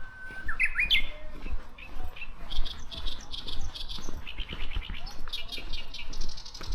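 Japanese bush warbler singing: a long held whistle that breaks into a quick rising flourish about a second in, the typical "hō-hokekyo" song. This is followed by several rapid strings of repeated high trilled bird notes, over low thumps.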